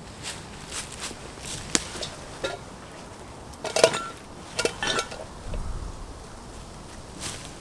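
Scattered light knocks and metallic clinks, the loudest about four seconds in and again near five seconds, each ringing briefly, as of metal gear knocking together.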